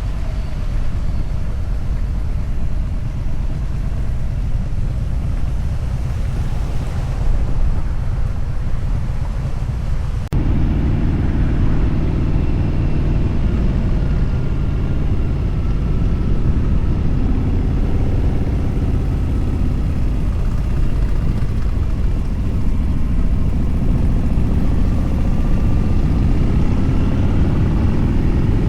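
Motorcycle running at highway speed, with steady engine and road rumble and wind noise on the microphone. The engine note drifts slowly up and down, and there is a sudden cut about ten seconds in, after which the rumble is heavier.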